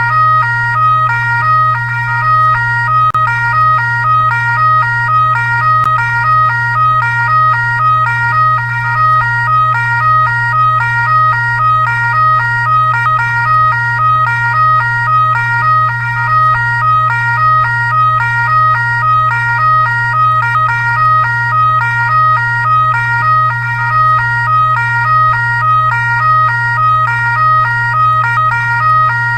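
Fire-truck electronic siren sounding continuously: a fast warble that flips between two pitches a few times a second over a steady low drone.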